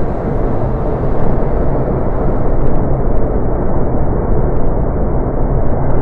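A really loud, weird, steady low noise with no clear pitch coming from the sky. It is the noise the uploaders attribute to an unidentified object circling their sky lantern.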